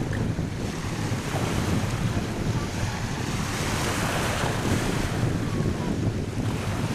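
Sea surf washing onto a beach under strong wind that buffets the microphone with a heavy low rumble; a wave surges louder about halfway through.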